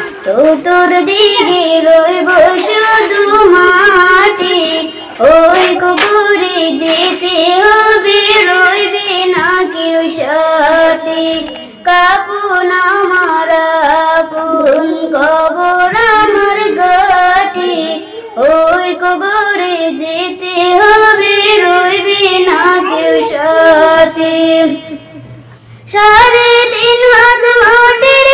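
A young woman singing a slow Bengali Islamic devotional song about the shroud and the grave into a handheld microphone, with long held, wavering notes. She pauses briefly shortly before the end, then comes back in.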